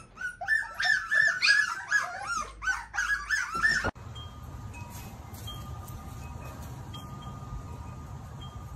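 Young puppies whining and whimpering in a quick series of high, wavering squeaky cries. These cut off suddenly about four seconds in, leaving only a faint, steady low background hum.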